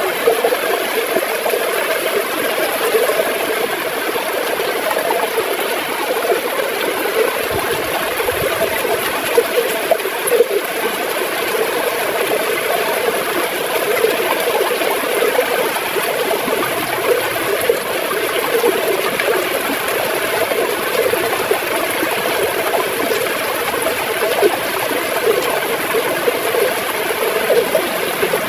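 River water gurgling and flowing steadily, with a constant rushing and bubbling over its whole length.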